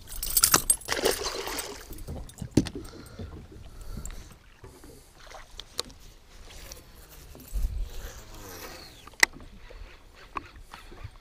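Water splashing as a northern pike is swung and thrashes at the boat's side on a metal lip gripper, followed by lighter knocks and rattles on the boat and a single sharp click near the end.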